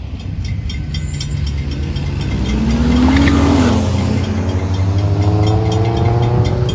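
Cars accelerating over a railroad grade crossing, one engine rising in pitch and falling away about three seconds in, then another revving steadily higher. A crossing warning bell rings rapidly and evenly behind them.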